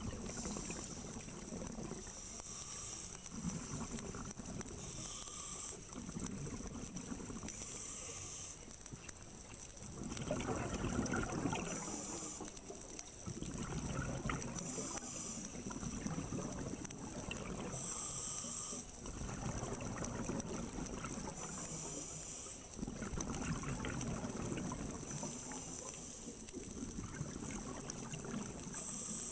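Scuba diver breathing through a regulator underwater: short hissing inhales alternate with longer noisy rushes of exhaled bubbles, repeating every few seconds.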